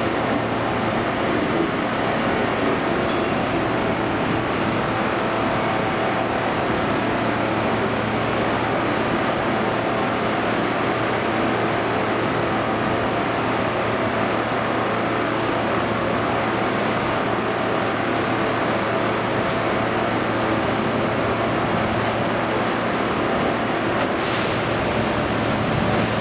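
Steady mechanical drone of running machinery, with a constant low hum underneath and no rise or fall.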